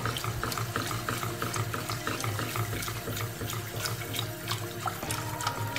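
Milk poured in a steady stream into a hot butter-and-flour roux in a steel saucepan, with a wire whisk stirring and ticking rapidly against the pan, several clicks a second.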